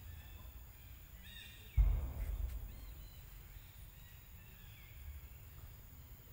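Outdoor ambience with birds chirping, several high calls in a cluster about one to two seconds in, over a steady low rumble. A sudden low thump about two seconds in, fading over about a second, is the loudest sound.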